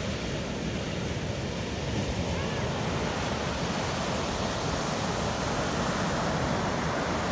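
Ocean waves breaking and washing on the shore in a continuous rushing surf. It eases slightly about a second in, then swells again.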